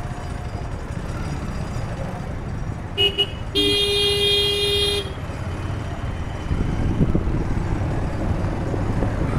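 A vehicle horn sounds in city traffic: two short toots about three seconds in, then one long blast of about a second and a half. Under it runs the steady rumble of a moving vehicle and the street's traffic.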